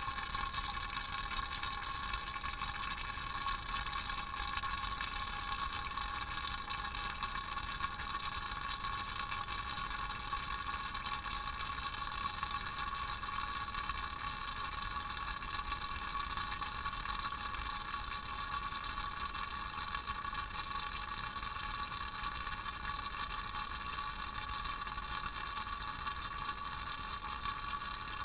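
Vacuum pump running steadily while it draws down a vacuum chamber, heard from inside the chamber as an even, high hiss with a thin steady whine through it. Air is being pulled out of a jar of spiced olive oil, which bubbles as the pressure drops.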